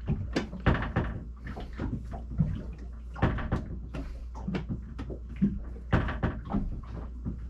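Irregular knocks and clicks of a cabinet door and its new latch being handled and fitted, the door bumping shut and hardware clicking, several of them loud and sharp. A steady low hum runs underneath.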